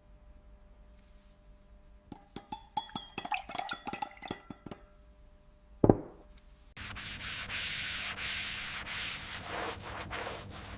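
Small hard parts clicking and clinking with short ringing notes, a single sharp knock, then steady rubbing, like sanding, for the last few seconds.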